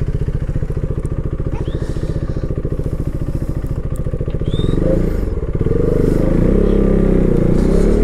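Motorcycle engine idling with a steady beat, then revving up and pulling away, its pitch rising from about five seconds in.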